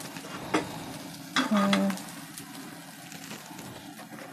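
Gas stove burner hissing steadily under an empty wok. A single clink comes about half a second in, and a short hummed voice sound follows about a second and a half in.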